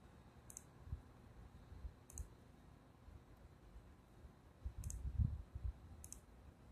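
A computer mouse button clicking four times, spaced a second or more apart, with a few low muffled bumps in between.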